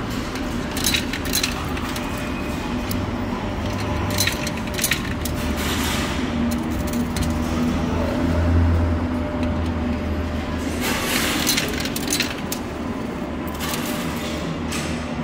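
Steady din of an arcade around a coin pusher machine, with scattered short metallic clicks and clinks of peso coins and the pusher mechanism.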